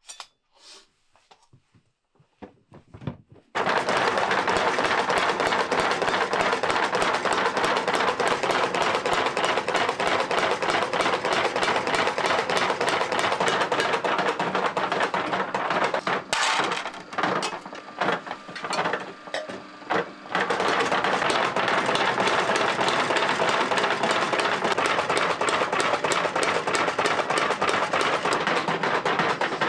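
Motor-driven spring power hammer striking a metal disc in a rapid, continuous clatter as the sheet is turned under the head. It starts about three and a half seconds in after a few faint clicks, and falters for a few seconds around the middle before running steadily again.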